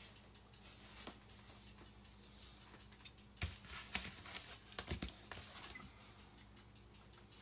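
Cardboard packing being handled: rustles and scrapes with a few light knocks as a cardboard sheet is shifted and lifted off the boxed model kits.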